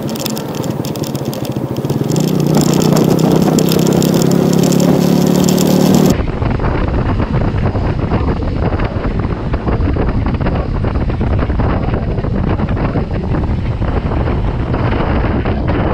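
A motor vehicle's engine note grows louder and rises slightly for a few seconds. About six seconds in it cuts abruptly to heavy wind buffeting and rumble on a camera microphone on a moving motorbike.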